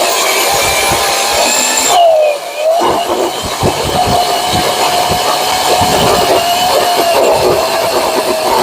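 Ryobi 40-volt battery chainsaw cutting through a red oak log, its electric motor running at a steady high whine with the chain rasping through the wood. About two seconds in, the pitch and level briefly sag and then pick back up.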